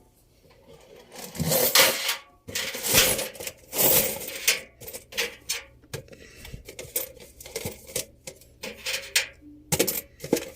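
Coins and small metal objects clinking and rattling in irregular bursts of clicks and clatters.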